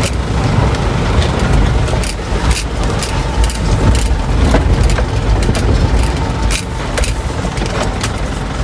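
Truck engine running, heard from inside the cab while driving over a rough dirt road, with a steady low rumble and frequent sharp knocks and rattles from the cab over the bumps.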